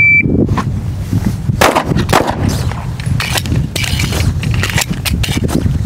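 A shot timer's start beep, then a pistol drawn and fired: two shots about half a second apart, followed by quieter clicks and clatter during the magazine change.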